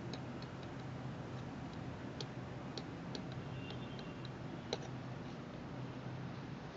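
Faint, irregularly spaced small clicks over a low steady hum.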